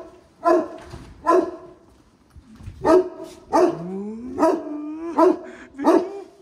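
A dog barking repeatedly, about seven sharp barks in a row with a short pause after the second, and a brief rising whine between the later barks.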